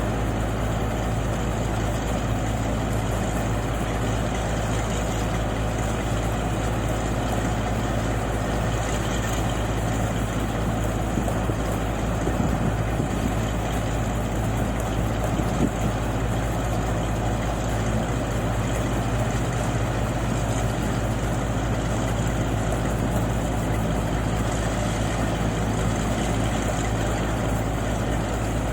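Engine of a paddy-unloading machine running steadily at a constant speed, with an even low hum and no change in pitch.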